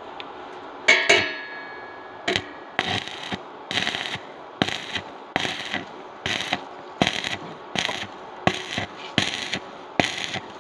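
Stick-welding arc on steel crackling in short, evenly spaced bursts, two or three a second, as the welding rod is worked along the seam in a whip-and-pause rhythm. A sharp metallic clink with a brief ring comes about a second in.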